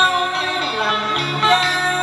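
Music: a song with guitar and a bass line moving from note to note.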